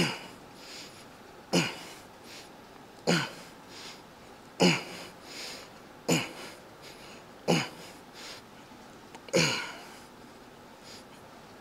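A man breathing out hard with a short falling grunt on each rep of a cable biceps curl, seven times at about one every second and a half, with quieter breaths in between.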